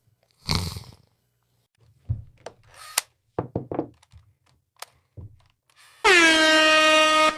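A golden retriever's snore about half a second in, then a few faint knocks and clicks. Near the end comes a loud, steady tone held at one pitch for over a second, the loudest sound here.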